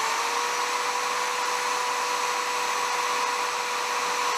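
Electric drill running steadily with a cobalt bit, boring into a seized steel bolt; the motor whine holds one steady pitch throughout.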